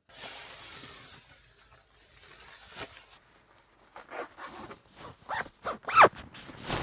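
A zipper being pulled in several quick strokes, the last one the loudest, after a soft hiss that fades over the first couple of seconds.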